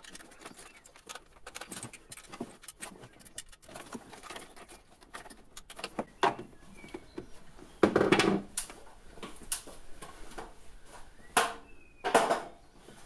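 Sped-up workshop sound of hand tools tightening the water pump bolts: a rapid scatter of small clicks and taps, with louder clattering bursts about eight seconds in and again near the end.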